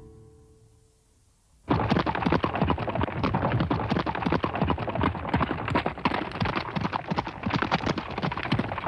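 Horse hooves galloping: a fast, dense clatter of hoofbeats that starts suddenly about two seconds in and stops abruptly at the end. Before it, soft music fades away.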